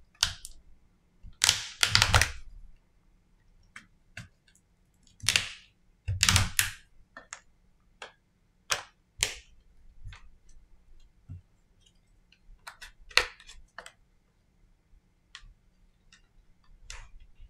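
Plastic clicks, snaps and short scrapes of a Samsung Galaxy M20's plastic back cover being handled and worked loose around its edge by hand. Louder bunches of snaps come about two seconds in, around six seconds and again near thirteen seconds, with lighter ticks between.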